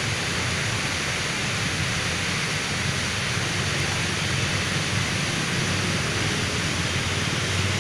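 Steady rushing of river water flowing under a thick layer of white foam, an even, unbroken noise.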